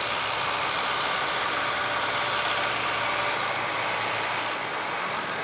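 Claas Jaguar 960 self-propelled forage harvester and the tractor hauling its trailer at work, chopping green triticale. They make a steady engine and machinery hum with a thin, steady whine running through it.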